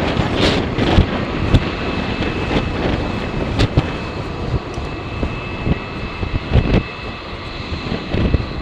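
Jet airliner engines running with a thin steady whine, under strong wind buffeting the microphone in gusts.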